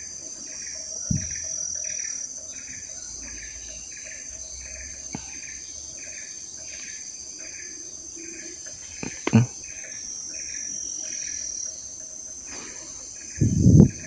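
Evening forest insect chorus: a steady high-pitched drone with a shorter chirp repeating a little more than once a second. A brief low sound comes about nine seconds in and a louder low one at the very end.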